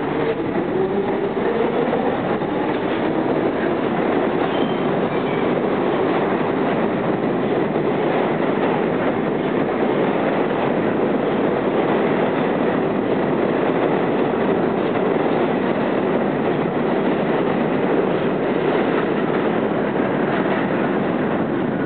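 R32 subway train pulling out of an underground station: its motor whine rises in pitch over the first couple of seconds, then the cars run past with a steady loud rumble of wheels on rail.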